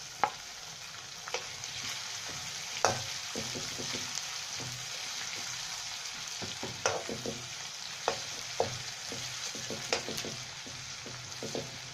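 Garlic-ginger paste and green chillies sizzling steadily in hot oil in a metal wok, stirred with a metal spatula that scrapes and now and then knocks sharply against the pan.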